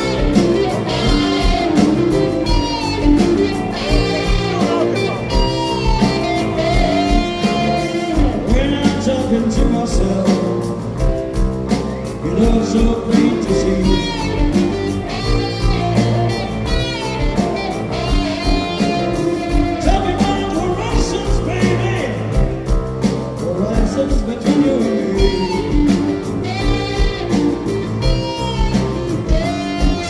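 Live blues-rock band playing: a male singer over electric guitars, bass, keyboard and drums, heard through the stage PA.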